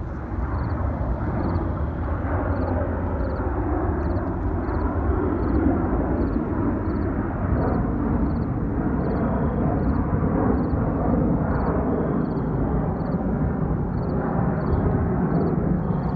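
Jet airliner climbing out after takeoff: a steady, deep engine rumble. A faint high tick repeats about twice a second above it.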